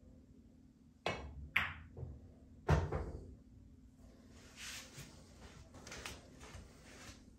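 A pool shot. About a second in, the cue tip knocks the cue ball. Half a second later comes a sharp, ringing click of ball on ball, then a louder, deeper thud about a second after that, followed by faint brushing sounds.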